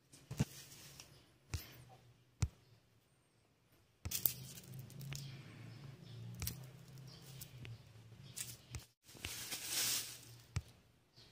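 Hands handling food containers and produce: a few sharp knocks and clicks, then plastic packaging crinkling loudly about nine to ten seconds in. A low hum comes in about four seconds in and runs on underneath.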